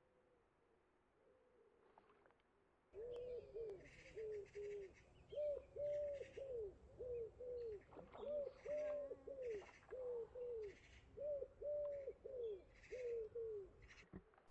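Common wood pigeon cooing in repeated phrases of soft, low coos, starting about three seconds in.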